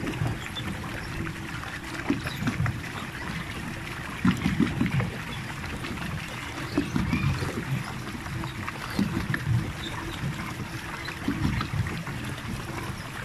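Pedal-powered water bike moving over a lake: water churning and lapping around it, with a low rumble that swells about every two seconds.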